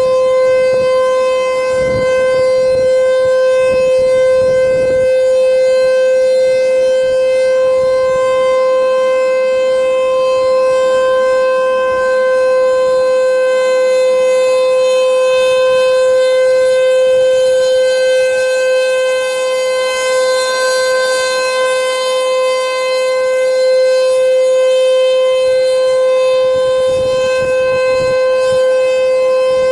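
Outdoor tornado siren sounding a loud, steady tone that holds one pitch throughout, in a siren test.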